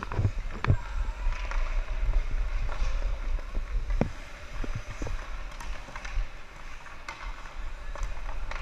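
Ice hockey play in an indoor rink: skates scraping on the ice and a few sharp knocks of sticks and puck, the loudest about four seconds in, over a low steady rumble.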